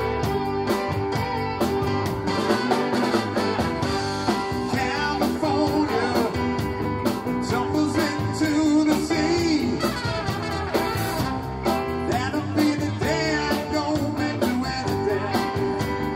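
Live band playing a song: drum kit, bass, electric guitar and keyboard, with a steady drum beat under a melody line that bends in pitch in the middle.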